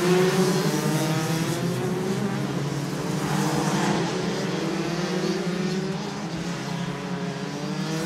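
Several Rotax 125 cc two-stroke racing kart engines running hard together, their pitches rising and falling as the karts pass.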